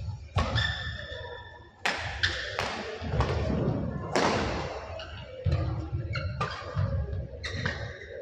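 Badminton rally: racket strings striking the shuttlecock in sharp cracks about once a second, echoing in a hall, with players' shoes squeaking and thudding on the court between shots.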